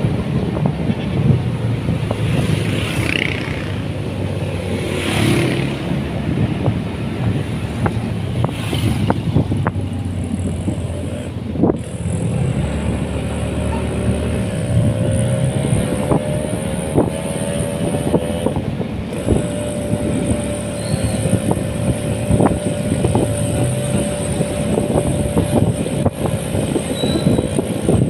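Small motorcycle's engine running while riding on a wet road, under a steady rush of wind on the microphone. About halfway through, an engine whine rises in pitch and then holds steady.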